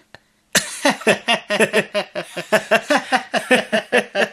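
Hearty human laughter starting about half a second in: quick, even bursts of about four or five a second.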